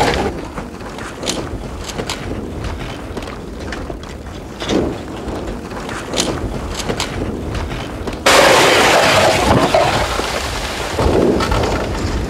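Advancing lava flow on Etna: a low rumble with scattered sharp cracks and clinks as the cooling crust breaks and tumbles, with the characteristic sound of breaking glass. About eight seconds in, a sudden, louder rushing noise sets in.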